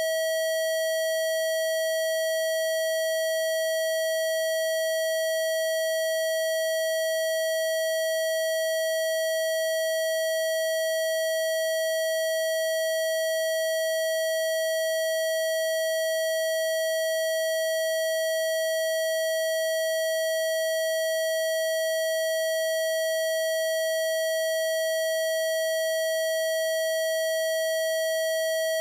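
Synthesized Rife-frequency tone: a steady electronic tone held at one unchanging pitch, with faint higher overtones.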